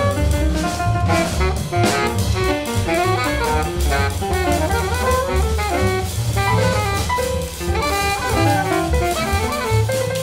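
Free jazz quartet recording: alto saxophone, piano, double bass and drum kit playing together in a dense, busy stretch of many short notes over a steady bass and cymbals.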